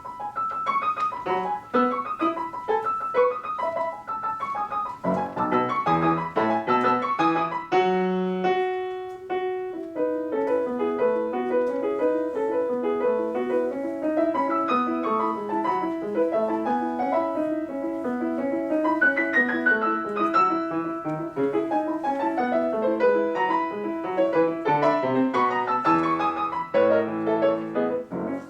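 Solo piano playing a fast, rhythmic classical piece, with quick runs above a steadily repeated middle note.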